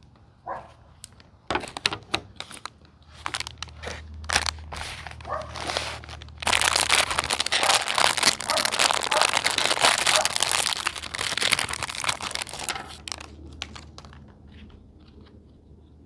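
Plastic packaging being handled and crinkled: scattered clicks and rustles at first, then about six seconds of loud, continuous crinkling that dies away near the end.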